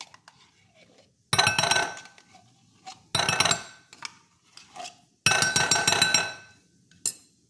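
A metal spoon scraping tomato paste out of a small tin can, three bouts of rapid scraping and clinking with a metallic ring, the last the longest.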